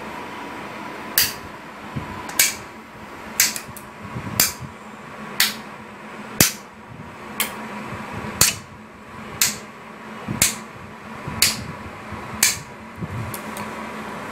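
Graviner OMD Mk5 oil mist detector control unit, powered on the bench, clicking sharply and evenly about once a second over a faint steady hum and high tone.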